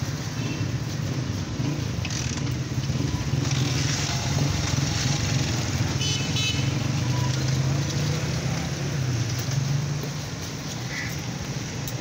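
A motor vehicle engine running steadily, a little louder in the middle and easing off near the end.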